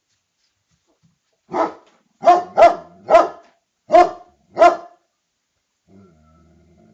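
A dog barking six times in quick, loud, sharp barks, in a burst that starts about a second and a half in and stops by the fifth second.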